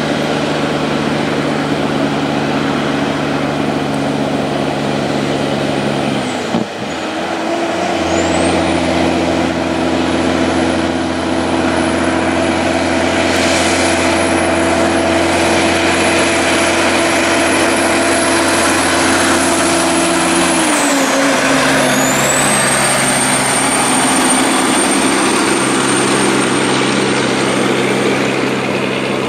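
Heavy diesel truck engines of Kenworth prime movers labouring steadily under a heavy load on a slow uphill climb. After a brief break about six seconds in, a road train's diesel engine pulls past under load with a high steady whine, its engine pitch dropping about two-thirds of the way through.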